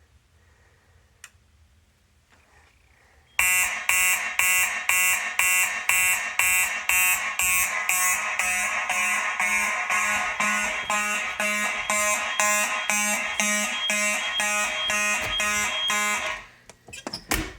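Fire alarm horn sounding in fast, even pulses, about two a second, set off by a System Sensor smoke detector under a smoke test. It starts about three seconds in and cuts off suddenly near the end as the alarm is silenced, followed by a few clicks.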